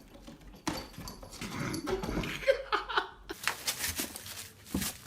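A dog's short vocal sounds mixed with scuffling. A little over three seconds in the sound changes abruptly to a run of sharp clicks or taps.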